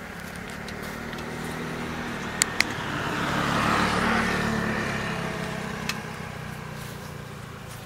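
A motorcycle passing on the road, growing louder to its closest about four seconds in and then fading away. Two sharp clicks come about two and a half seconds in.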